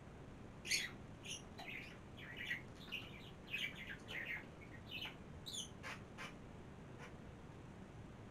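Small birds chirping: a quick run of short, high chirps starting about a second in and dying away about six seconds in.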